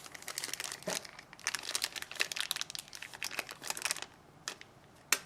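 Plastic packaging around model-kit parts crinkling as it is handled, a dense run of crackles that stops about four seconds in, followed by a single sharp click near the end.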